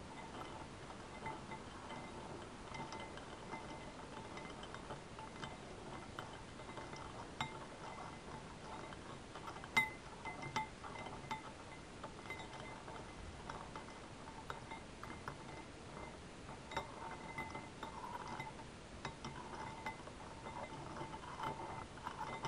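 A spoon stirring liquid in a glass bowl, with light, irregular clinks as it knocks against the glass and one louder clink about ten seconds in.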